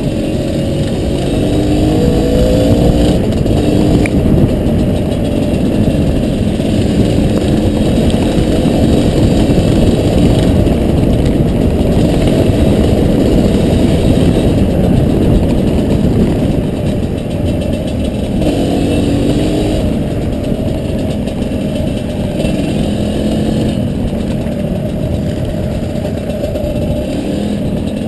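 Two-stroke Honda CRM250R dirt bike engine running under way, its revs rising and falling about a second in and again past the middle, over a steady low rumble.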